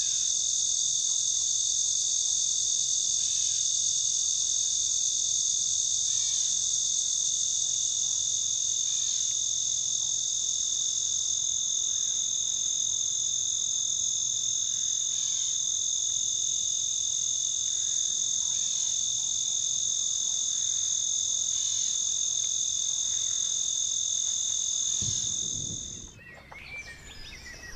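Insects trilling steadily at a high pitch, with no break, until the sound cuts off near the end. A low thump comes as it stops, and after that only quieter outdoor sounds remain.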